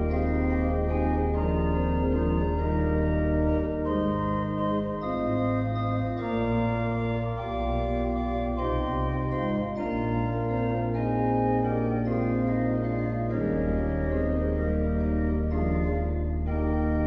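Organ music playing slow, sustained chords over long held bass notes, with the bass line moving through several notes midway.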